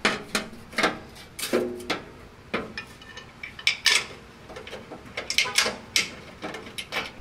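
Irregular sharp metallic clinks and knocks as a metal bracket and its bolts are handled and fitted against a metal catalytic converter shield under the vehicle, some with a brief ring.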